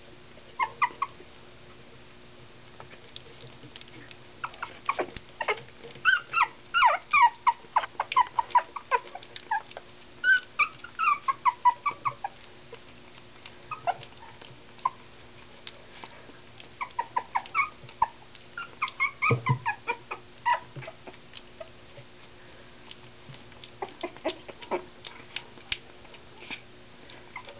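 Shih Tzu puppies squeaking and whimpering: short, high-pitched cries that each fall in pitch, coming in quick runs with pauses between.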